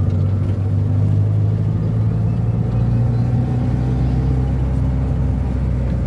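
1971 Ford Corcel's four-cylinder engine running steadily under way, a low even drone as the car is driven.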